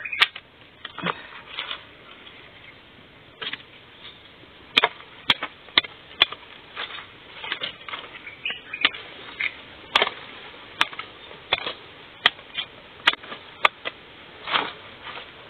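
Machete blade chopping and slicing at a wild bamboo shoot to strip off its husk: a series of sharp knocks at irregular intervals, with some rustling of the husk and dry leaves between them.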